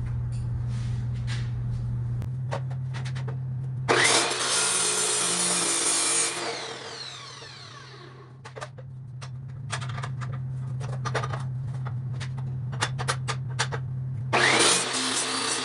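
Handheld power grinder shaping the coped end of a metal tube, run in two short bursts: it spins up and grinds for about two seconds, then winds down with a falling whine. Light clicks and knocks from handling the tube come in between, and a second burst starts near the end. A steady low hum runs underneath.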